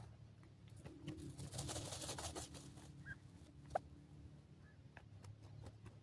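Grey francolins dust-bathing in loose soil: a soft rustling scatter of dirt and feathers about a second in, lasting over a second, with scattered small ticks, one sharper tick near the middle and a couple of faint short chirps.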